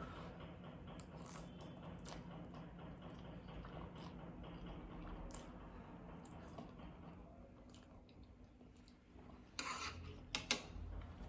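Faint chewing of noodles, with scattered small clicks. Near the end comes a brief louder noise, then a couple of sharp clicks.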